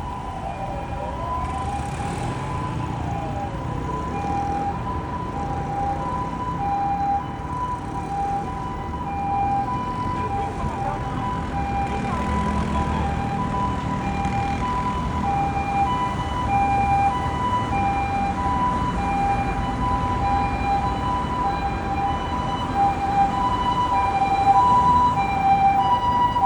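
Japanese ambulance's two-tone electronic siren ("pee-po") alternating steadily between a high and a low note, getting louder toward the end. In the first few seconds a mechanical motor siren winds down in falling wails over it, with engine and traffic rumble beneath.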